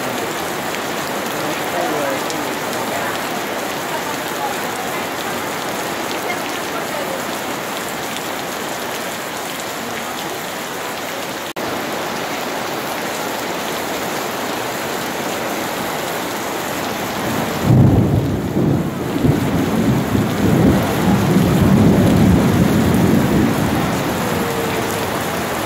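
Heavy rain falling steadily. About two-thirds of the way through, a sudden loud rumble of thunder breaks in and rolls on for several seconds.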